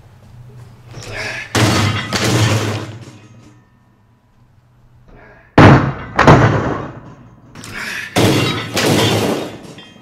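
Dishwasher thrown off a roof crashing onto a concrete driveway: a loud crash and a second impact about half a second later as it bounces, heard three times, the middle one loudest.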